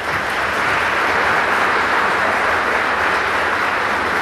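Crowd applauding, a steady spell of clapping.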